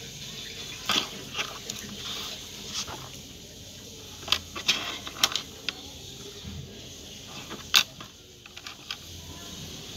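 Scattered small clicks and taps of fingers handling soft modelling clay on a tabletop, the sharpest about eight seconds in, over a faint steady hiss.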